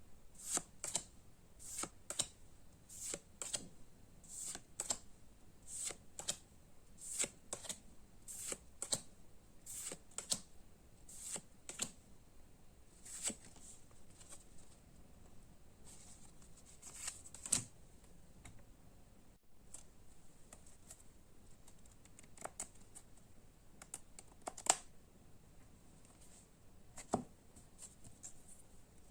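Trading cards being handled one after another: a string of faint light clicks and rustles, about one a second at first, then sparser with a few sharper snaps.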